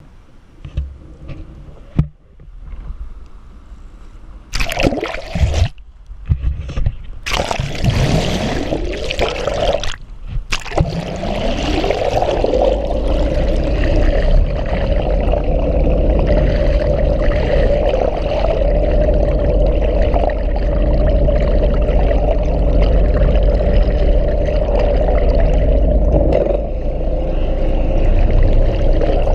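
Action camera plunged into the sea beside a moving boat: a few seconds of splashing as it breaks in and out of the surface, then steady underwater rushing of water over the camera with a constant hum, the boat's motor heard through the water.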